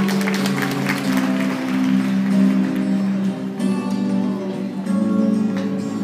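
Music with guitar playing for a figure skating performance, with scattered applause from the audience in the first second.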